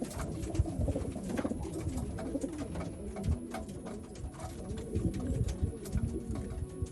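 Several domestic racing pigeons cooing, their low, rolling calls overlapping, with scattered light clicks and knocks from birds moving about.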